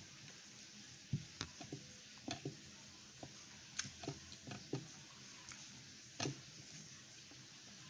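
Close-up eating sounds of noodles and rice eaten by hand: irregular short smacks and chewing clicks, the loudest about a second in and again near six seconds.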